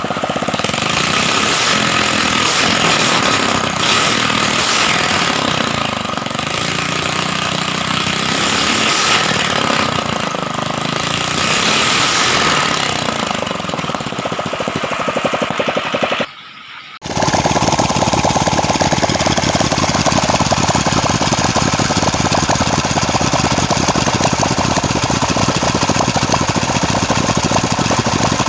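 Ketinting longtail boat engine running loudly and continuously, its pitch shifting during the first half. The sound drops out for under a second about sixteen seconds in, then the engine carries on at a steady, even pace.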